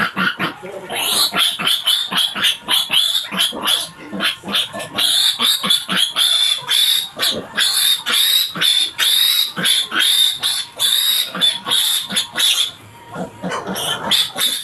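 Piglet squealing loudly and without pause while held upside down by its hind legs and castrated: a rapid string of short, shrill distress squeals, several a second, easing briefly near the end before starting again.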